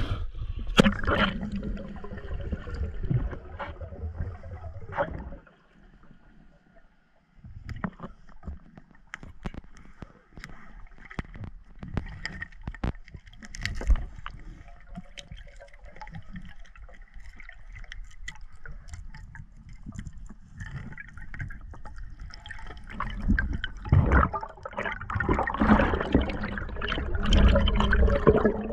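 Lake water splashing at the surface, then muffled underwater gurgling and bubbling broken by scattered sharp clicks and knocks. The splashing and churning grows loud again near the end.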